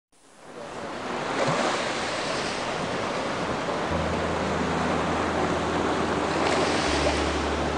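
Ocean surf washing onto a beach, fading in at the start and swelling with incoming waves about a second and a half in and again near the end. A low steady hum comes in underneath about halfway.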